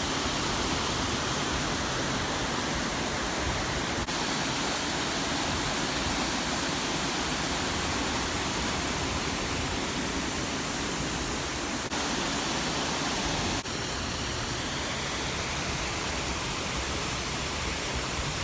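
Waterfall rushing: a steady, even roar of falling water, with small sudden jumps in level a few times where shots change.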